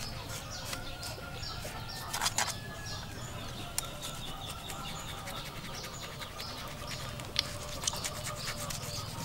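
Knife scraping and slicing as hide is cut away from raw meat, with a few sharp clicks. Short, repeated falling bird chirps run throughout behind it.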